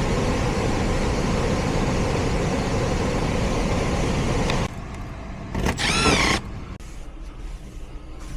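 Heat pump air handler running with its electric heat strips on: a steady rush of blower air that cuts off abruptly about four and a half seconds in. A short wavering pitched sound follows about a second later.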